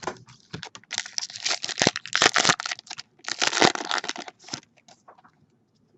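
Foil wrapper of a baseball card pack being torn open and crinkled, in two bursts of crackling: one about a second in, the other just past three seconds.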